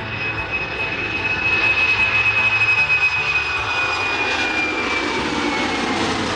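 Airbus A310 twin-engine jetliner taking off at full thrust. The jet engines run with a steady high whine over the noise, loudest a couple of seconds in, and the whine sinks slowly in pitch near the end as the plane climbs away.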